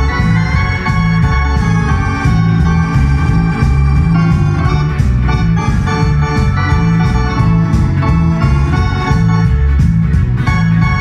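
Yamaha Genos arranger keyboard played live: a melody with chords in an organ voice over the keyboard's steady bass and drum accompaniment.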